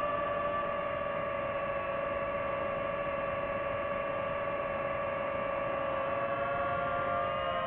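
DJI FPV drone's electric motors and propellers whining steadily in flight, the pitch shifting slightly near the end as the motor speeds change.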